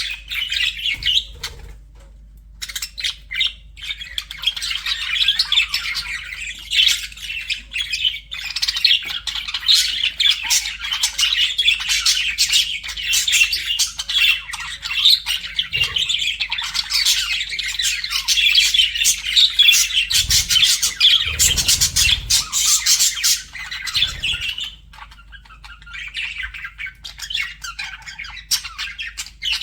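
Budgerigars chattering and warbling in a dense, unbroken stream of chirps and squawks, the courtship chatter of flirting budgies; it thins out and grows quieter near the end.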